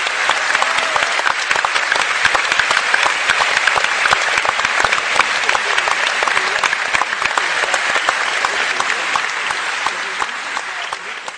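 Theatre audience applauding an opera aria: dense, steady clapping that fades out near the end.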